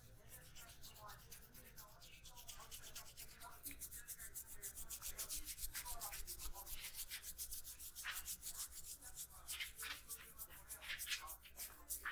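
Hands rubbing an oiled scalp and hair in a brisk head massage: a fast, even run of brushy friction strokes, several a second.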